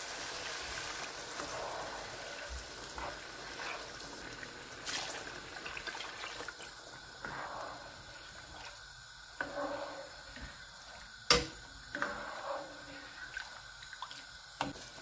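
Water poured from a glass into a pan of fried chickpeas, a steady splashing pour for the first several seconds. Then a spoon stirs the watery curry, with a few sharp clicks against the pan, the loudest about two-thirds of the way through.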